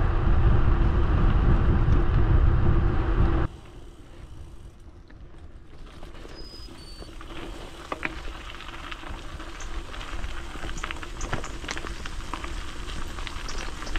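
Bicycle riding noise: heavy wind buffeting on the microphone for the first few seconds, cutting off abruptly, then quieter tyre rumble on a rough track with many small clicks and rattles from the bike.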